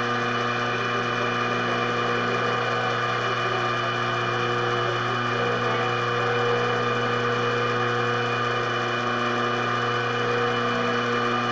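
Pantograph mill's spindle running steadily with a whine of several held tones while its cutter routs a letter into a block of wooden printing type.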